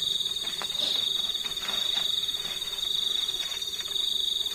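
A cricket trilling steadily at a high pitch in the night forest, breaking off near the end.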